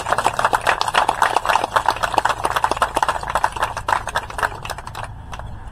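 Audience applauding: a dense, irregular patter of many hand claps that thins out near the end.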